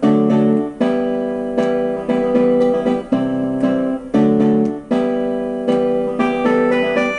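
Instrumental song intro on an electric piano or keyboard, playing sustained chords with a new chord struck a little under once a second.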